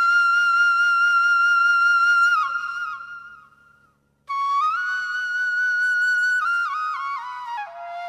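Background music: a solo flute melody. It holds a long high note that drops and fades out, goes silent briefly just before halfway, then starts a new phrase with another held note and steps down through shorter notes.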